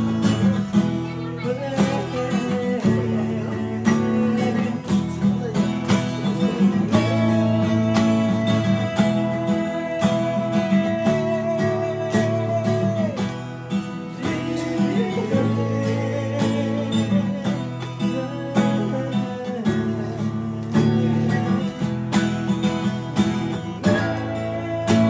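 A man singing a song while strumming an acoustic guitar, holding some long notes with a slight vibrato.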